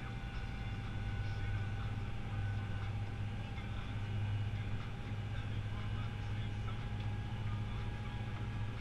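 Fendt 516 tractor's four-cylinder diesel engine running at a steady speed while driving on the road, heard from inside the cab as a steady low drone with a faint whine over it.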